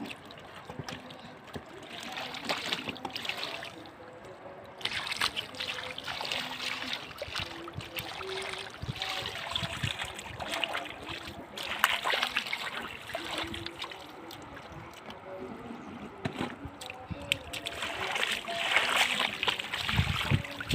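Shallow flood water splashing and trickling in irregular bursts as hands and feet move through it while groping for catfish, loudest near the end.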